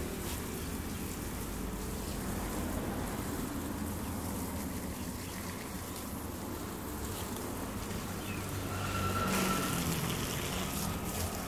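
Water from a garden hose splashing onto soil and shrubs, over a steady low hum.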